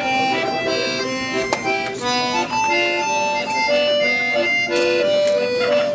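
Instrumental music: a melody of held notes that move from one pitch to the next every fraction of a second, with chords beneath.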